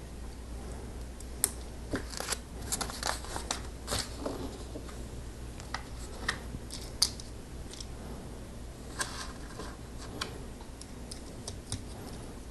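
Irregular small clicks and taps of plastic LEGO pieces being handled and pressed together, with a low steady hum underneath.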